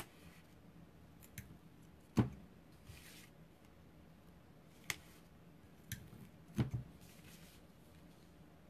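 Strips of double-sided Tear & Tape adhesive being torn off and pressed onto card stock: a handful of sharp clicks and taps, the loudest about two seconds in, with short papery rustles between.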